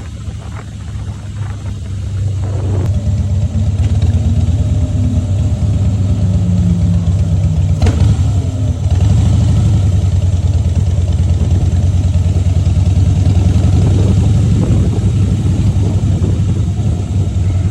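Harley-Davidson Breakout's V-twin engine running with a deep, steady throb. It grows louder about two seconds in and again about nine seconds in.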